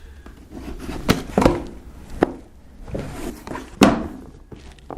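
A graphics card's cardboard box and its plastic wrapping being handled and opened: several sharp knocks and clicks over rustling.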